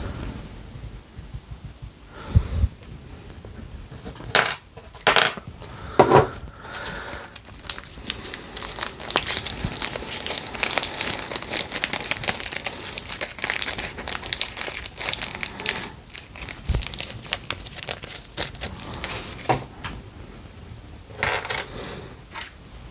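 Hand work on small RC car steering parts: scattered sharp clicks and taps, with a stretch of dense crinkly scraping in the middle, as the bushings are worked out of the bell crank.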